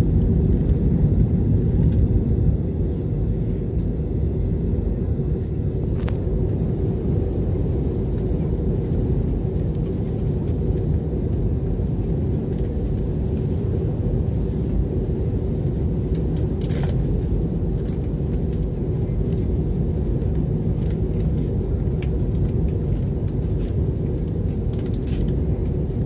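Steady low rumble of engine and airflow noise inside the cabin of an Airbus A320 airliner, a little louder for the first two or three seconds and then even, with a few faint clicks.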